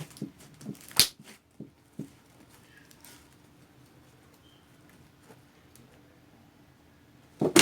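Fluffy slime being handled and stretched to make a bubble, giving a few short sticky snaps and pops. The loudest comes about a second in, with another near the end and quiet between.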